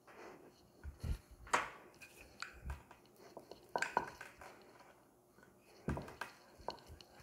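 Wooden rolling pin rolling small rounds of dough on a marble board, with a few scattered light knocks and clicks of wood on stone, the sharpest about a second and a half in.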